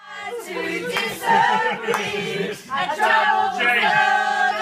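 A group of people singing together, several voices holding drawn-out notes, with a few sharp claps or knocks among them.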